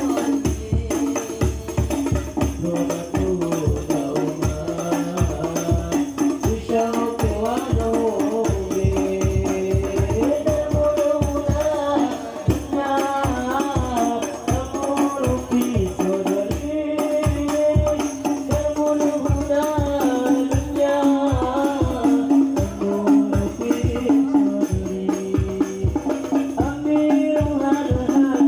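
Hadroh ensemble playing through a loudspeaker system: hand-beaten rebana frame drums keep a fast, steady rhythm under voices singing an Islamic devotional melody.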